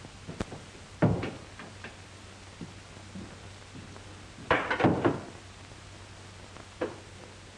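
A few scattered knocks and thumps of boots on a wooden floor and of furniture being handled, with a quick cluster of knocks about four and a half seconds in. A faint low hum runs underneath.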